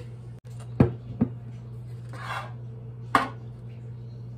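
Kitchenware knocked and set down on a wooden countertop: three sharp clunks, two close together about a second in and one about three seconds in, with a brief scrape between them.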